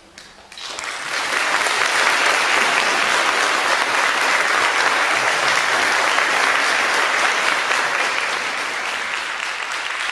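Audience applause: clapping starts about half a second in, swells to full within a second and holds steady, easing off slightly near the end.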